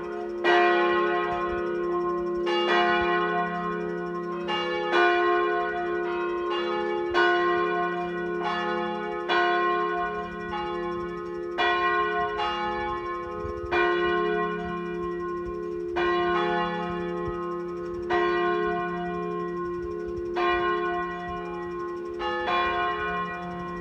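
Full peal (plenum) of the Groenestraatkerk's church bells: all the bells ringing together, strikes overlapping in an irregular pattern about once a second, with a steady low hum ringing on beneath.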